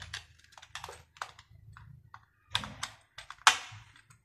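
Screwdriver undoing the screws on the back of a plastic magnetic contactor housing: a run of small irregular clicks and scrapes of metal on plastic, with one sharper knock about three and a half seconds in.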